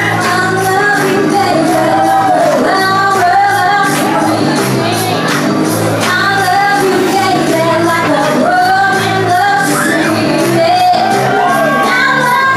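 A woman singing live with vibrato over an accompaniment with a steady beat.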